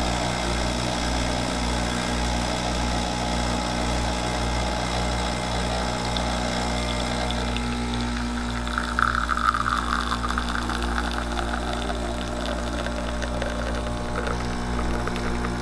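Rocket Mozzafiato espresso machine's pump running with a steady hum while a shot is pulled.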